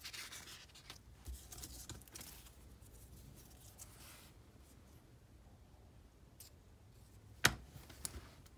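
Paper pattern rustling as it is peeled off a cut piece of leather, then quieter handling of the leather. Near the end come two sharp taps, the first the louder, as the pieces are set down on a cutting board.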